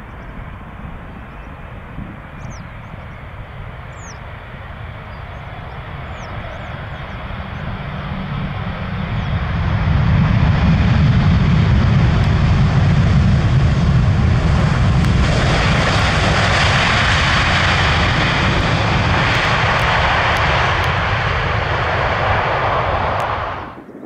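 Arriving jet airliner passing close by on approach to land: its engine noise builds over several seconds to a loud, steady rumble with a hiss, then cuts off abruptly near the end.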